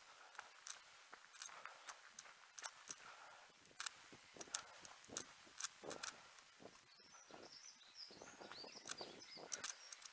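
Light, irregular crunching clicks of a runner's footfalls, picked up by a head-mounted camera, over a faint hiss. A small bird sings a short run of high chirps about seven seconds in.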